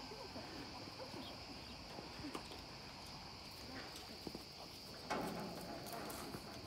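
A steady high drone of insects, with scattered soft knocks and a brief louder rustle about five seconds in.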